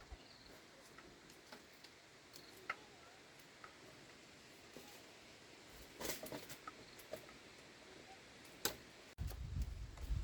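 Faint scattered clicks and light knocks of bamboo pieces being handled during coop building, with a cluster of knocks about six seconds in and a sharp click near nine seconds. Just after that a low rumbling noise comes in suddenly and stays.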